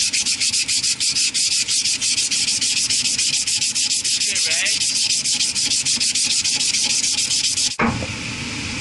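Abrasive cloth rubbed shoeshine-style around a steel electric-motor shaft in rapid, even strokes of about five a second, scouring rust off the shaft. It stops abruptly near the end, leaving a low steady rumble.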